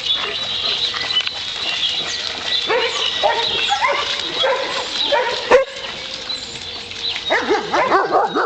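Dogs barking in short bursts, starting about three seconds in and again, more thickly, near the end, with one sharp knock just past halfway.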